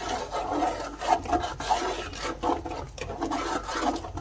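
Metal spoon scraping against a large cooking pot while stirring kheer, a continuous run of short, irregular scraping strokes.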